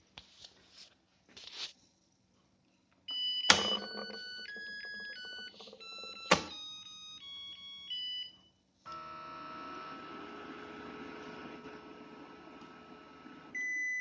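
Zojirushi NP-ST10 rice cooker on a test run after repair for error codes H17/E17: its control panel plays a short electronic melody of stepped beeping tones, broken by two sharp clicks. About nine seconds in, a steady hum of the cooker running starts, and it ends with a single beep.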